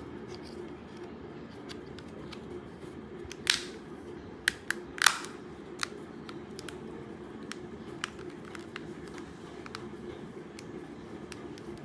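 Hard plastic clicks and snaps as a remote control's top cover is pressed onto its base, several sharp clicks near the middle, then a few faint ticks.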